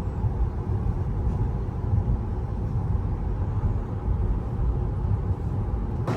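Low, steady rumble of a car driving, road and engine noise as heard from inside the vehicle.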